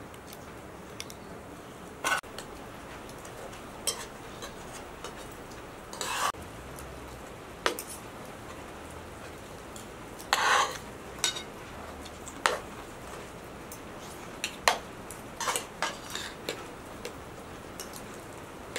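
Metal spoons and a ladle scraping and clinking against cooking pots and metal serving plates as rice and stew are dished out, in scattered short strokes with quiet gaps between.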